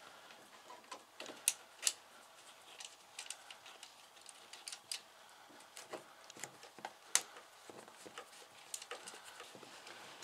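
Irregular light metallic clicks and taps as a brass cutting-ring compression union and its nuts are handled and fitted by hand onto the cut metal fuel lines.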